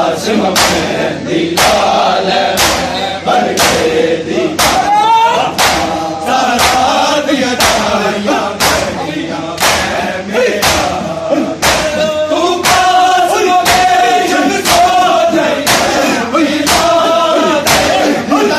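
Men beating their chests in matam, a steady rhythm of sharp slaps, under a noha sung by a male reciter and chanted back by the crowd of mourners.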